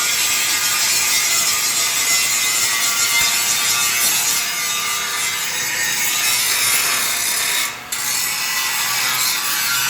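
Angle grinder grinding down a welded joint on a metal pickup body, a steady harsh grinding that breaks off briefly about eight seconds in.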